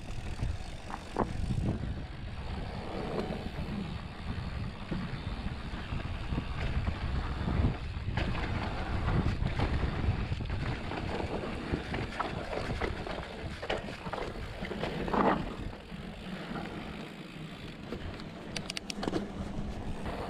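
Wind buffeting the microphone over tyre noise as a mountain bike rolls along a dirt trail, with a short pitched sound about three-quarters of the way through.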